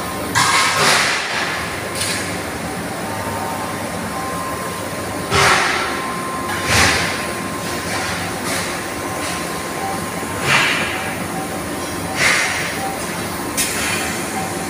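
Steady industrial machinery noise with a faint steady whine, broken by about six short, loud, hissing bursts a few seconds apart.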